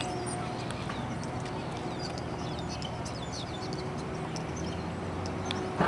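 Outdoor background noise with many short, high bird chirps and a few faint clicks, then one sharp knock near the end.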